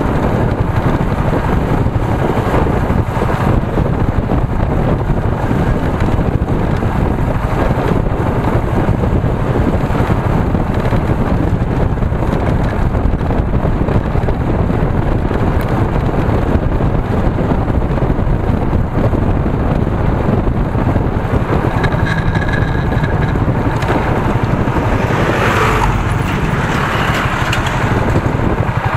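Wind rushing over a motorcycle-mounted camera's microphone at riding speed, with the motorcycle's engine and road noise underneath. Near the end, a short louder rush as oncoming vehicles pass.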